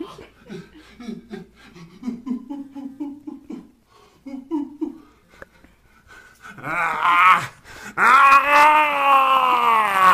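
A man's voice goofing around: short, low grunting syllables at first. About six and a half seconds in comes a loud, wavering vocal, then a long, loud held note that cuts off abruptly.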